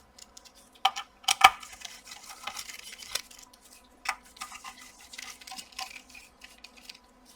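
Small screwdriver clicking and scraping as screws are taken out of the back of a graphics card, with a few louder sharp clicks about a second in and scattered taps after.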